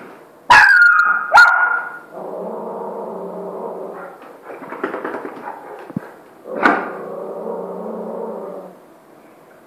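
Saint Bernard inviting play: two sharp barks, then a long low whining moan, another bark about two-thirds of the way through, and a second long whine.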